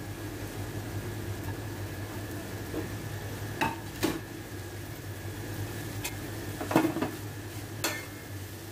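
Bell pepper and mushroom slices sizzling in a stainless steel pan on a gas burner, with a metal spoon clinking sharply against the pan several times as they are stirred.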